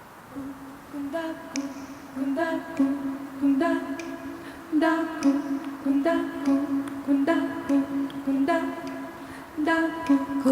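An a cappella vocal group singing a song's wordless introduction: a steady hummed note with a pulsing, repeated vocal figure over it, coming in about half a second in and growing louder.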